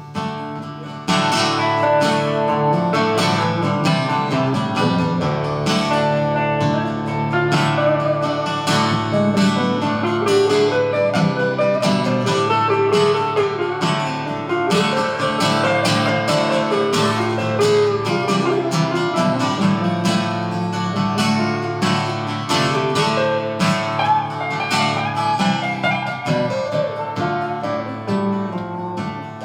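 Instrumental break in a live folk-roots song: steady strummed acoustic guitar with a bending melodic lead line over it, no singing. The playing comes in louder about a second in.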